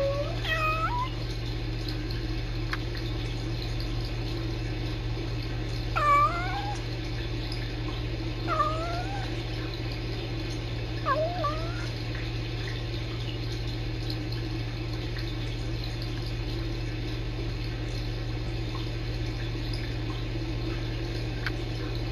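Kittens making about six short chirping calls, each sliding upward in pitch, spread over the first half and then stopping, over a steady low hum.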